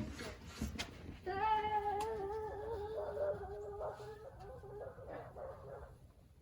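A domestic animal's long, wavering call, starting about a second in and held for several seconds with shifts in pitch.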